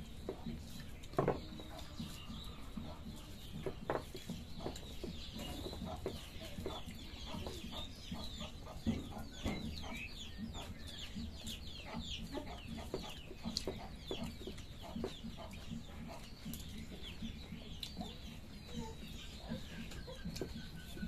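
Many short, falling bird chirps, densest through the middle, over scattered faint clicks and a steady low hum.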